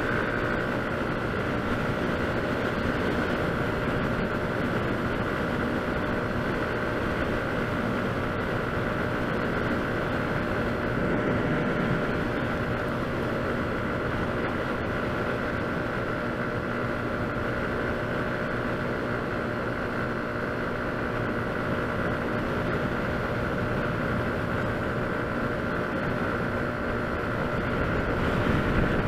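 Motor scooter running at a steady cruising speed, a constant drone with wind and road noise, swelling slightly near the end.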